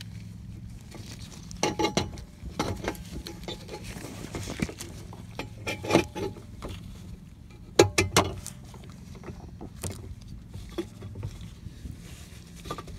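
Scattered plastic clicks and knocks from gloved hands working at the back of a Honda CR-V headlight housing, the loudest a quick cluster about eight seconds in, over a steady low hum.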